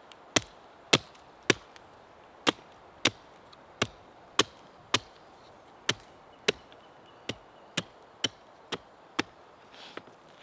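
About fifteen sharp wooden knocks, roughly two a second, stopping near the end: a fresh upright stick standing on a tree stump being struck from above, working it down for a bow drill handhold.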